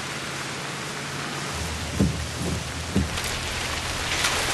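Steady heavy rainfall, with two short dull thumps about two and three seconds in.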